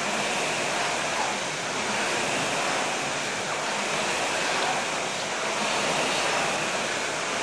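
Steady whooshing rush of a Concept2 air rowing machine's fan flywheel spinning under continuous rowing.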